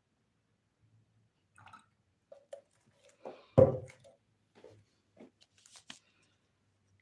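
A clear plastic juicer jug is handled after pouring: a few soft drip-like taps, then one loud knock about three and a half seconds in as the jug is set down, followed by several lighter clicks and knocks.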